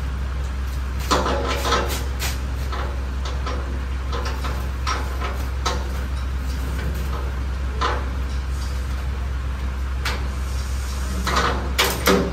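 Black plastic stretch-wrap film being torn and pulled off a motorcycle shipping crate: irregular crackling rips and crinkles, a cluster of them near the end, over a steady low hum.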